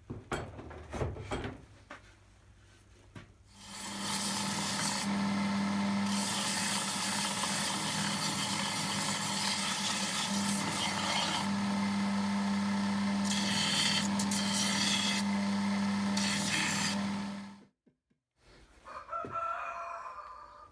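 A few light knocks of wood being handled, then an electric woodworking power tool runs steadily on wood for about fourteen seconds, starting about four seconds in and cutting off abruptly.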